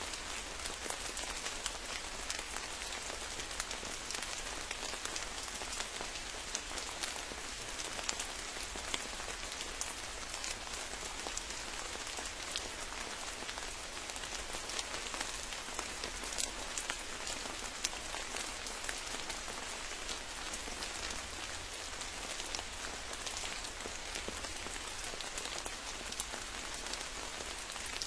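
Steady rain falling, many small drop ticks over an even hiss, with no let-up.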